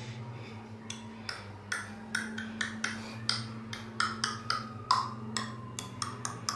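A run of short, sharp clicks or taps, irregularly spaced at roughly two a second, over a low steady electrical hum.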